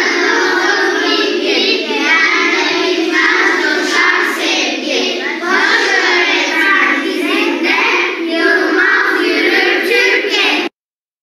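A class of young children singing together in unison. The sound is thin, with no bass, and cuts off suddenly about half a second before the end.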